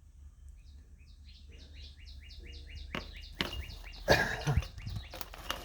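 A songbird singing a fast string of short descending chirps, several a second, for about three seconds. In the second half there are sharp clicks and knocks.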